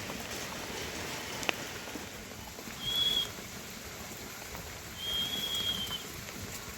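Steady rain pattering, heard as an even hiss, with a sharp click about one and a half seconds in. Two high whistled notes, each held at one pitch, stand out over it: a short one about three seconds in and a longer one about five seconds in.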